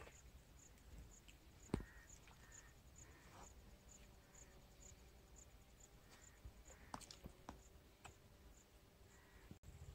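Near silence with a faint insect chirping steadily, about three high pulses a second. A sharp click a couple of seconds in and a few softer clicks later.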